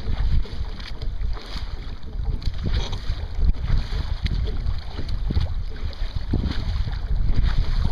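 Wind buffeting the microphone in a low, uneven rumble, over water splashing and slapping against the hull of a Sunfish sailing dinghy moving under sail through a chop.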